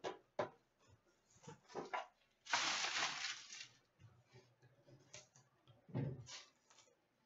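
Trading-card packaging handled and torn open: a few light clicks and taps, then about a second of loud crinkling and tearing of a shiny wrapper, and a low thump near the end.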